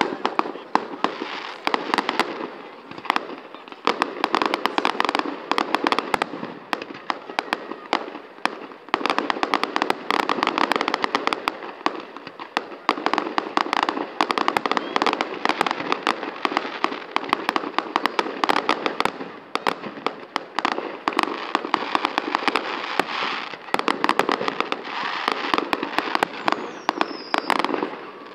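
Fireworks display: aerial shells bursting and crackling stars going off in a dense, near-continuous barrage of bangs and crackles, with a short falling whistle near the end.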